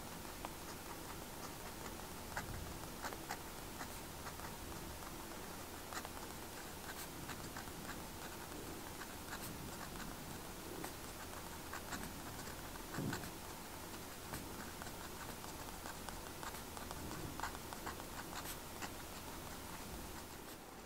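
Fountain pen with a metal nib writing small handwriting on paper: light scratching strokes with scattered small ticks as the nib lifts and lands, over a faint steady hiss.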